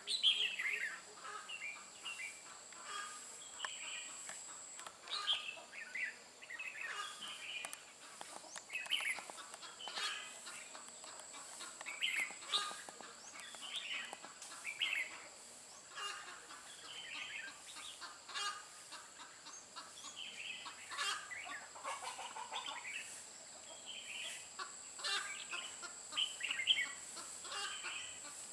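Red-whiskered bulbuls singing in combative, territorial song: short, bright chirping phrases, repeated every second or so.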